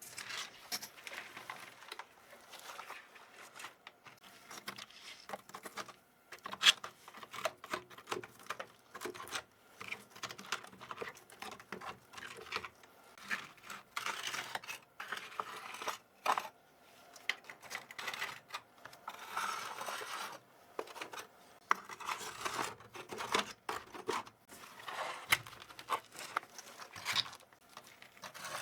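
A very dirty computer keyboard being cleaned by hand: a busy, irregular run of small plastic clicks, scratches and rustling, with one sharper click about six and a half seconds in.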